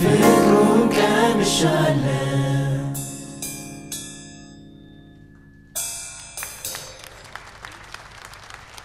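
A church choir with band sings the last line of an Amharic gospel song, then holds a final chord that slowly fades while a few ringing percussion strikes sound over it. About six seconds in, a sudden noisy burst of percussion with ringing strikes comes in and tails off.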